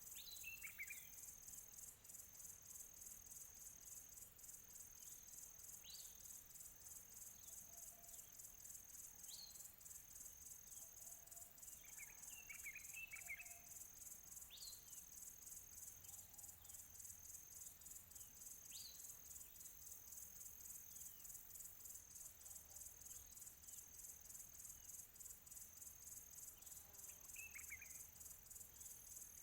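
Quiet outdoor ambience of insects trilling in a steady, high, fast-pulsing drone, with scattered bird calls over it: a handful of short downward-sweeping whistles and three brief bursts of chirps, near the start, around the middle and near the end.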